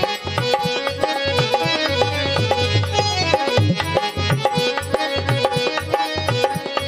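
Instrumental interlude of a Hindu devotional bhajan: hand drums play a steady rhythm under a melody of held notes on a reed or keyboard instrument.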